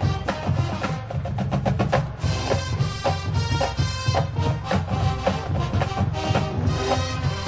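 College marching band playing, brass over drumline percussion, with a quick run of rapid drum strokes about a second in.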